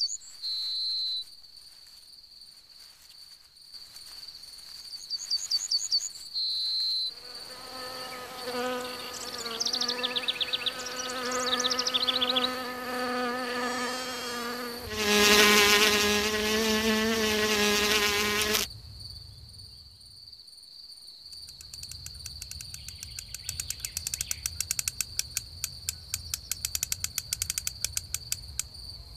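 Meadow insect sounds: a steady high-pitched cricket trill, a few short chirps, then an insect's wing buzz that wavers in pitch and is loudest about halfway through before cutting off suddenly. In the last third comes a fast run of clicking chirps.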